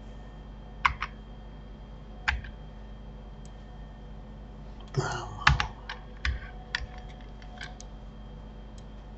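Computer keyboard keystrokes and clicks: two about a second in, one more a little after two seconds, then a quick run of about ten from about five seconds in, over a faint steady hum.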